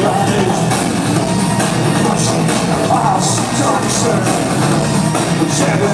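An industrial band playing live at full volume, thin in the bass, with repeated cymbal-like crashes over a dense electronic and guitar mix.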